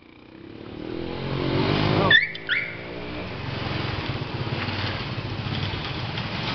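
A motor vehicle's engine rising in pitch and growing louder over the first two seconds, then a brief high squeal twice, then a steady engine rumble.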